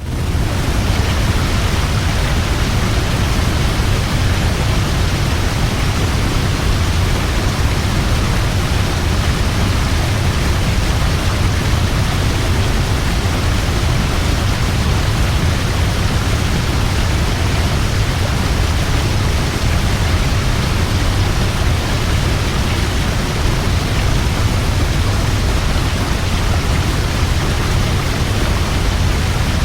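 Large waterfall: a steady, loud rush of falling water with a deep low rumble, fading in at the start.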